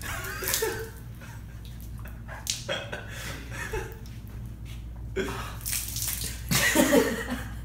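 Milk pouring and splashing off the edge of a tilted baking sheet onto clothes and the floor, in several spills, the loudest near the end, with laughter mixed in.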